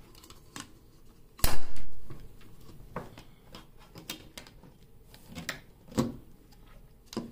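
Clicks and light knocks from handling a goof ring and a recessed LED light as the ring is fitted around the light, with one louder clatter about a second and a half in.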